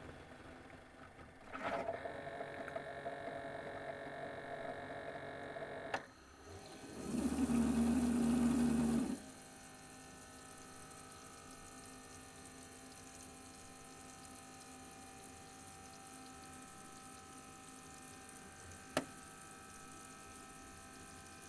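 Keurig coffee maker working through a brew cycle: a steady run with a clear tone that ends in a click, then a louder low buzz for about two seconds that cuts off suddenly. A faint hum follows, with a single click near the end.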